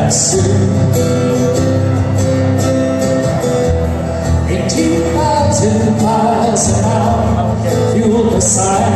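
Live music: a man singing while playing an acoustic guitar, with a band's bass underneath, heard loud and full in a large hall.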